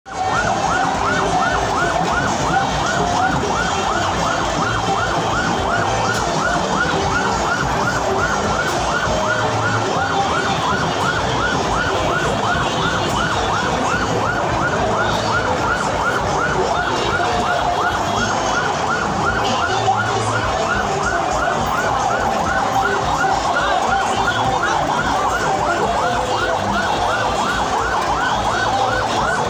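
A vehicle's electronic siren in fast yelp mode, several quick rising-and-falling sweeps a second without a break, over the din of a large crowd.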